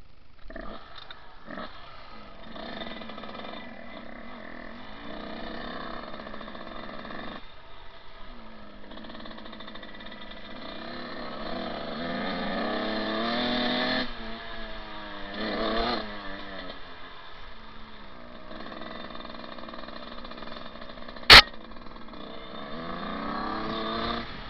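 Small dirt bike engine running and revving, its pitch climbing and falling several times as it rides off. A single sharp click, the loudest sound, comes late on.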